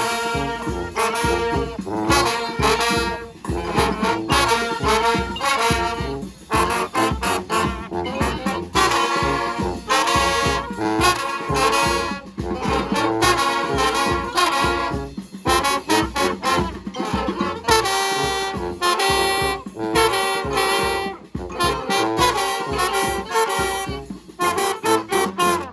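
Brass band playing a tune, the horns sounding together over a steady beat.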